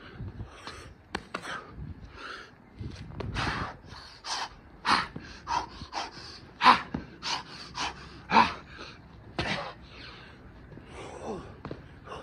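A man panting hard from exertion: a string of sharp, forceful breaths and gasps in quick succession, the loudest in the middle stretch.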